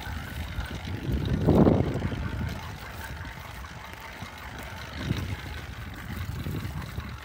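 A motorized bicycle's small engine running during a ride over rough dirt, with a rough rumble that surges loudest about a second and a half in.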